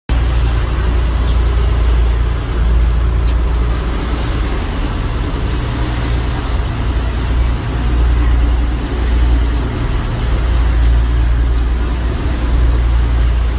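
Sport-fishing boat under way: a steady engine drone with the rushing wash of the wake behind the stern.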